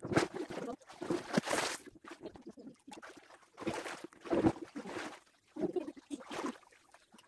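Pool water splashing and sloshing in repeated bursts as people wade and swim in a small above-ground pool, with voices between the splashes.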